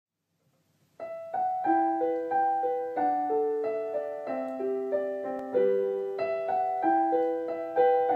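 Piano music, a melody over chords, starting about a second in.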